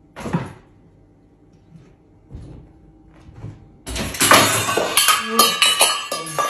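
A few separate knocks on a wooden shelf unit as a pet jumps onto it and climbs, then, about four seconds in, a loud and dense clatter of many knocks and clicks.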